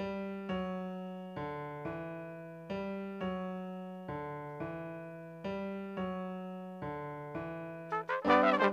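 Roland FP-7F digital piano playing a repeated chord in a steady long-short rhythm, each chord ringing and fading. About eight seconds in, a trumpet and a trombone come in over it, louder than the piano.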